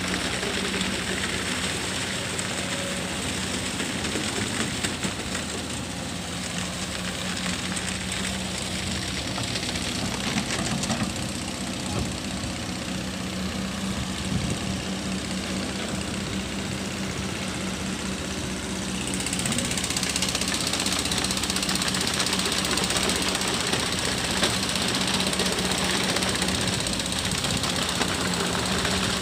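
Kobelco hydraulic excavator's diesel engine running as the machine digs and lifts mud with its bucket: a steady drone with a low hum. About two-thirds of the way through, the engine gets louder and brighter and stays that way.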